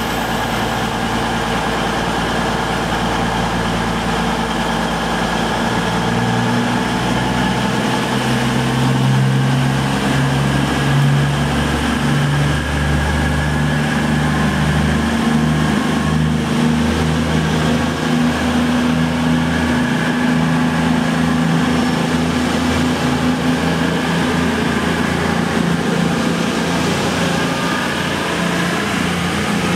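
Class 221 Super Voyager diesel-electric multiple unit pulling away, its underfloor diesel engines running low at first, then powering up about six seconds in and holding a steady engine note. A steady hiss of heavy rain lies underneath.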